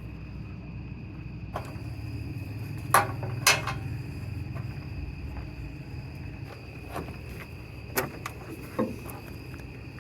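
Insects chirring steadily over a low hum, broken by a few sharp knocks: two loud ones about three seconds in and two more near the end.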